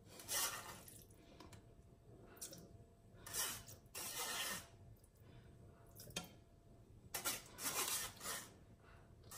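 A spoon scraping drained rice against a metal mesh sieve, in a series of short scrapes with pauses between them.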